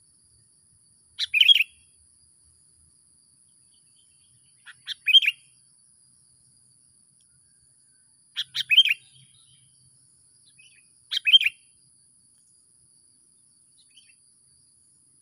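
A songbird perched in a tree calling: four short chirped phrases of a few quick notes each, about three to four seconds apart. A faint steady high-pitched tone runs beneath.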